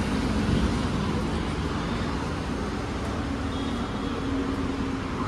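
Steady car and traffic noise, a low continuous rumble of vehicles running.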